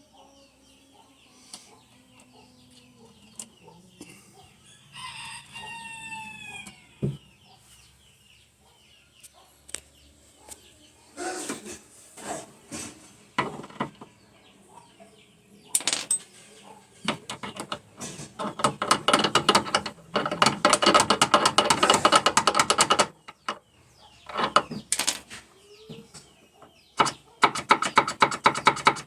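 Chickens: a rooster crows once, followed by long runs of loud, rapid clucking and cackling.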